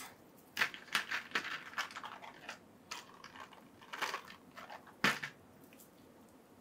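Crinkling and clicking of plastic packaging being handled, in irregular bursts, with the sharpest clicks about half a second in and about five seconds in.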